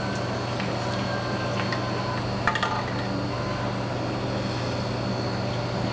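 Steady low machine hum, like a ventilation fan or cooling unit running, with a light click about two and a half seconds in.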